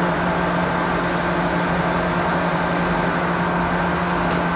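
A 13 kW three-phase electric motor running steadily, with an even electrical hum and whir. A single sharp click about four seconds in, from the switch being operated for the self-restart current test, after which the hum shifts slightly.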